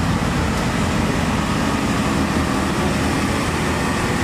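Hino tanker truck's diesel engine running as the truck drives along the road: a steady drone of engine and road noise at an even level.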